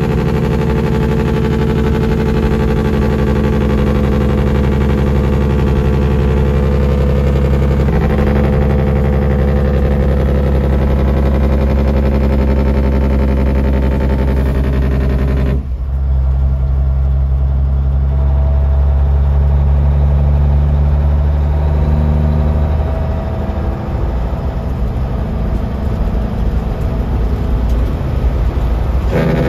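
Semi truck's diesel engine heard from inside the cab, running loud and steady under the engine (Jake) brake. The sound shifts abruptly about halfway through and drops somewhat in level for the last few seconds.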